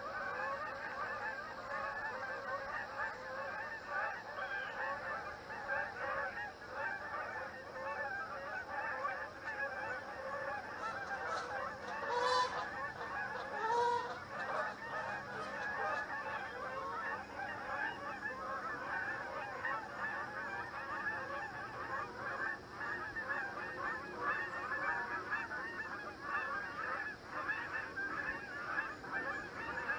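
A flock of Canada geese honking continuously, many calls overlapping, with two louder, nearer honks about twelve and fourteen seconds in.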